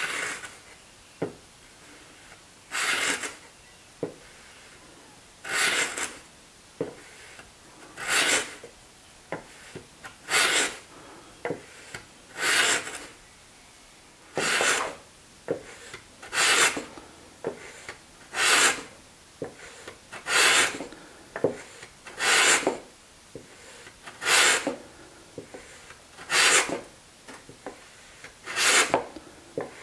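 Wooden panel-raising plane cutting across the end grain of a pine board: a rasping stroke about every two seconds, with light clicks between strokes.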